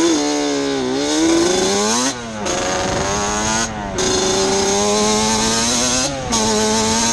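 Modified Yamaha Banshee's two-stroke twin engine pulling under throttle, the note rising and falling. It breaks off briefly three times and comes back lower each time, as on upshifts.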